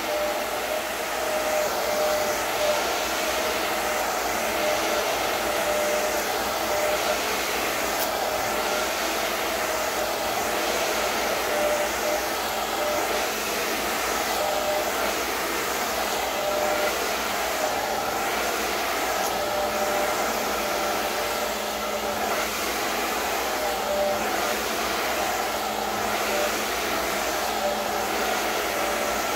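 Handheld blow dryer running steadily while it blow-dries wet hair straight through a brush: a continuous rush of air with a steady whine.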